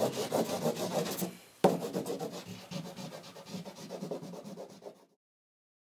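Quick repeated strokes of a drawing tool rubbing on paper, breaking off briefly about a second and a half in, then starting again sharply and fading out about five seconds in.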